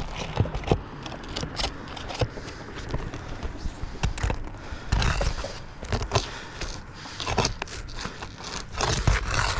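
Irregular scraping and sharp clicks of hand work on asphalt roof shingles, with longer scrapes about halfway through and near the end.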